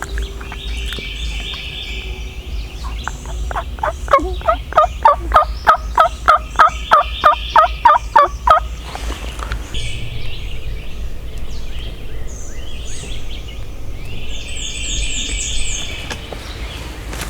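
A long series of wild turkey yelps, about fifteen loud, evenly paced notes at roughly three a second, stopping a little past the middle. Songbirds chirp before and after.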